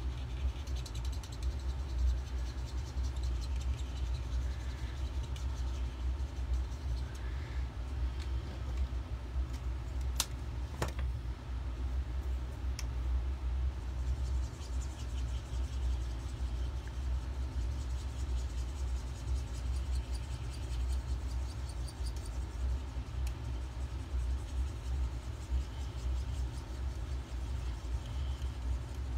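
Steady low background rumble, with the faint scratch of an alcohol marker being stroked across paper and two light clicks about ten seconds in.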